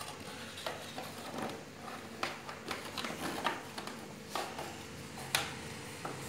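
Scattered light clicks and knocks of a black plastic rear fender being handled and fitted into place on a Yamaha FZ16's swingarm, over a faint steady hum.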